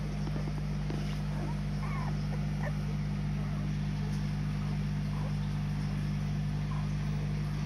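Several faint, short, high squeaks from week-old white Swiss Shepherd puppies over a loud steady low hum from a machine.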